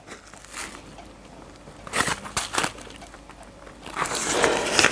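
Small brown paper envelope of dried goat's rue crinkling in the hands, with a few crisp crackles about two seconds in. Near the end comes a long sniff as the herb is smelled.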